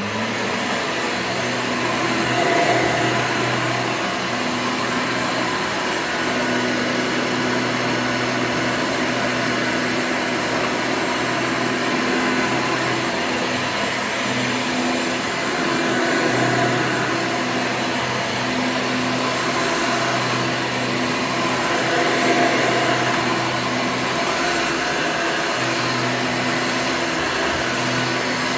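1996 Hoover Convertible U5063-930 upright vacuum cleaner, fitted with a 20-blade motor fan, running steadily: a continuous motor hum under a rush of air, with a few slight swells in level.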